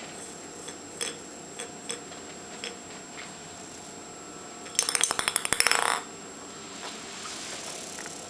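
A few scattered light taps, then a rapid rattle of clicks lasting about a second, just past the middle.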